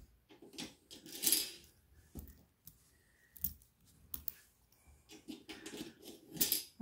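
Small plastic runners being pushed and slid into the track of a plastic curtain rail: irregular plastic clicks and short scrapes, the loudest about a second in and again near the end.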